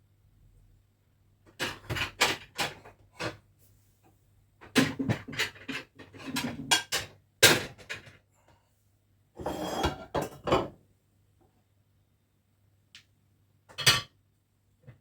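Kitchen clatter: dishes, pots and utensils knocking and clinking in quick clusters, with a longer, noisier stretch about ten seconds in and one last knock near the end.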